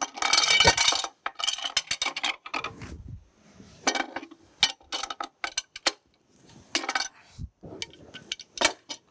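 Metal clicking and clinking of a large wrench worked back and forth to unscrew the threaded oil check-valve body from a steam locomotive's cast iron valve cover. A dense run of clicks comes in the first two seconds, then single clinks every second or so.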